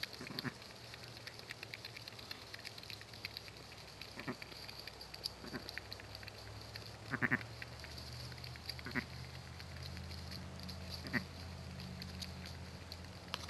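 A ewe and her newborn lamb giving short calls, about six of them a second or two apart, the loudest about seven seconds in.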